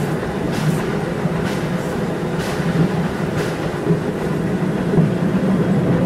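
Steam locomotive running along the line with its train: a steady low rumble of running gear and wheels on the rails, with a faint hiss recurring about once a second.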